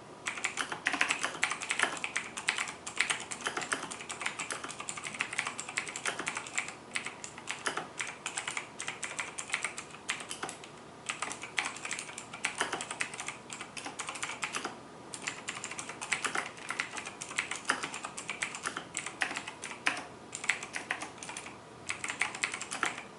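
Fast continuous typing on a Razer BlackWidow Chroma mechanical keyboard, its Razer Green clicky switches giving a dense stream of sharp clicks, with a few brief pauses.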